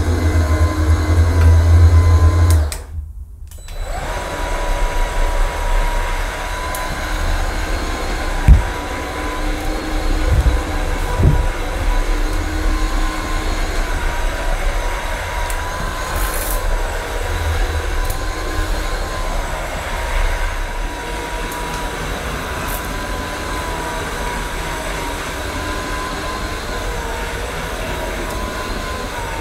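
AirCraft PowerGlide cordless hard floor cleaner running, its motor turning the twin microfibre pads over hard floor with a steady whine and low rumble. The sound drops out briefly about three seconds in, and there is a sharp knock a few seconds later.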